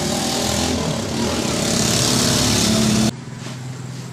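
An engine running with a strong hiss over it, cutting off suddenly about three seconds in.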